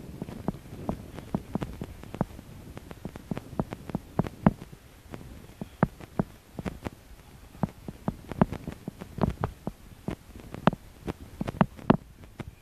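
Footsteps on a coarse sandy beach: short crunching steps, about two or three a second, with low thumps.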